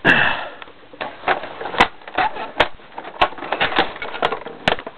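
Irregular sharp clicks and light knocks of hard plastic being handled, about a dozen in a few seconds, from working inside an opened-up upright vacuum cleaner's housing.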